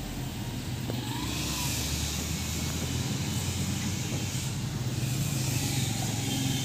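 An engine running steadily with an even, low hum.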